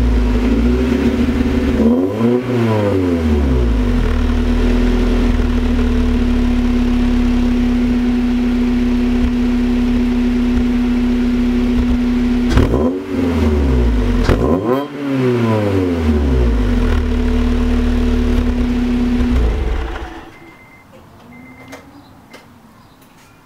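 Honda F20B four-cylinder engine idling through an aftermarket header and cat-back exhaust, with a quick rev about two seconds in and two more in the middle. The sound cuts off about twenty seconds in. The owner wonders whether the uneven idle note is a misfire or just the exhaust tone.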